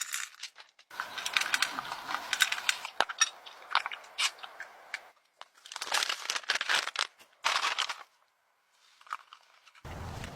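Crinkling, crackling handling noise in three bursts, like material being crumpled or rustled by hand, then a low steady noise starts near the end.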